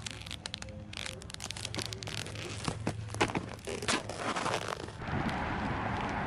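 Rustling, crackling handling noise with many sharp clicks, giving way about five seconds in to a steady rushing noise.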